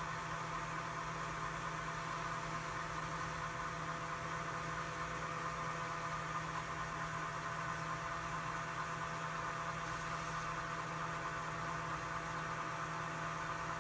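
Steady electrical hum with faint hiss, unchanging and with no distinct events.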